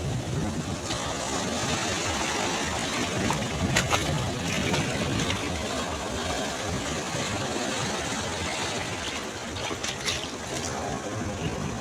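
Sea waves breaking and washing on a shore: a steady low rumble of surf under a hiss of moving water, with a couple of brief crackles about four and ten seconds in.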